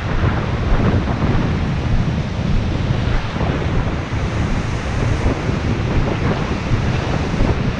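Breaking surf washing in and out around the feet, with strong wind buffeting the microphone.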